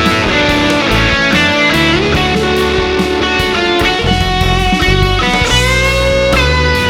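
NOVO Serus J electric guitar playing a lead line with bent and sliding notes over a backing track with bass and drums.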